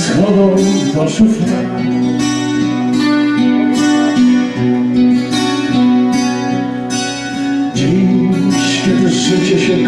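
Live song with acoustic guitars, a man singing a slow song in Polish over them.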